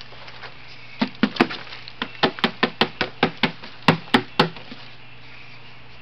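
A rapid series of about a dozen hollow knocks as an upturned foam cooler is banged and tapped to knock its contents out into a plastic worm-bin tray.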